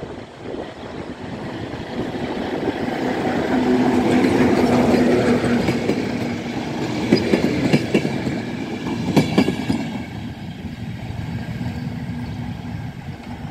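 Diesel-hauled passenger train passing close by: the locomotive's engine hum builds to a peak about four seconds in, then the coaches' wheels clack sharply over the rail joints, and the sound fades as the train moves away.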